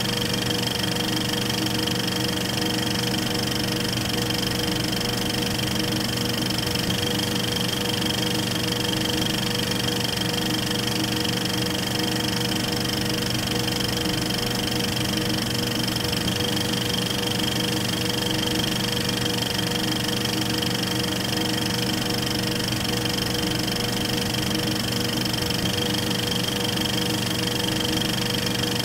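Film projector running: a steady mechanical whir with a constant hum.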